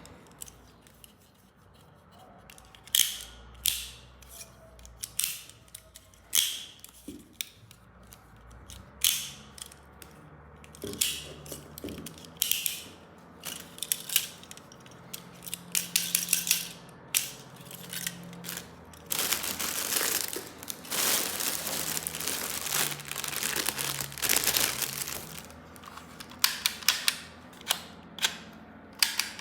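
Plastic toy weapons and their packaging being handled: a string of sharp clicks and snaps, with a longer spell of crinkling, rustling packaging about two-thirds of the way in.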